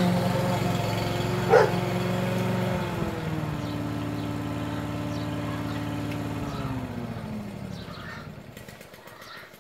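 Briggs & Stratton four-stroke mower engine running steadily, dropping in pitch about three seconds in, then winding down and fading away as it is shut off. A dog barks once, loudly, about one and a half seconds in.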